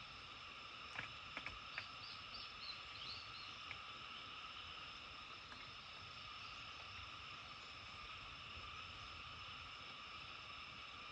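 Dawn countryside ambience: a steady chorus of calling animals holding a few even high pitches throughout. A few sharp clicks come about a second in, followed by a short run of quick high bird chirps.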